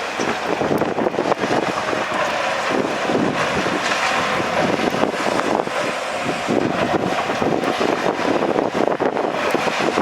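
Heavy earthmoving machinery running at work, a dense rumbling noise full of small crackles, with wind buffeting the microphone.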